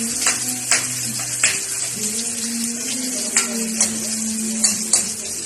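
Food sizzling in a frying pan, with a utensil clicking against the pan about seven times as it is stirred.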